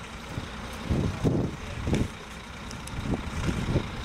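Parked coach's diesel engine idling, a steady low rumble, with a few brief irregular knocks over it.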